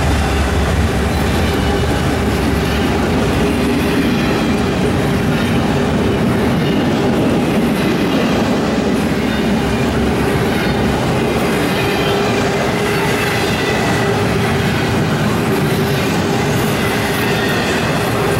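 Norfolk Southern intermodal freight train passing close by. The diesel locomotive's deep rumble is strongest in the first second, then gives way to the steady rumble and clatter of double-stack container cars rolling past on the rails.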